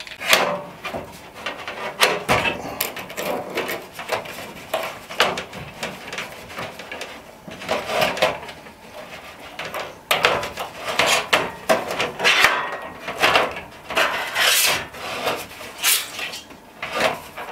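Irregular clinks, knocks and scraping as a faucet and its flexible supply hose and fittings are handled against a thin stainless steel sink while the faucet is mounted.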